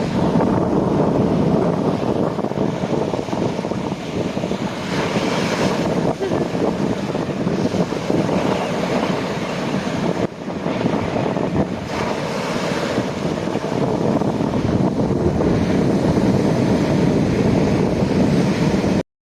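Ocean waves washing in and wind buffeting the microphone: a steady rush of noise. It cuts out for a moment near the end.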